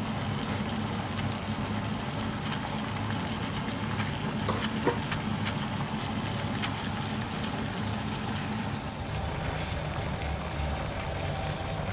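Water at a rolling boil in titanium mugs over alcohol stoves: a steady bubbling and hissing with scattered pops, over the low rumble of the burning alcohol flames.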